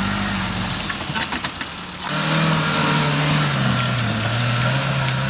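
Suzuki off-road 4x4 engine running under load as it crawls over rough ground, with a few sharp ticks and knocks about a second in. After an abrupt cut, a 4x4 engine pulls steadily up a steep climb, its note holding then sagging slightly.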